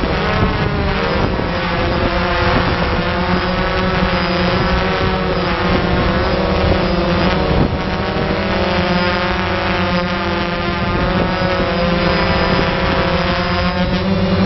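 Drone rotors running steadily close to the microphone, several motor pitches drifting slowly up and down as the drone holds its hover.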